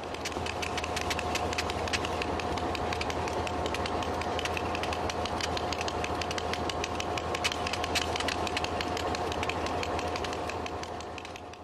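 Alco diesel locomotives idling at a standstill: a steady low drone with a high whine over it and a busy crackle of ticks. It fades out near the end.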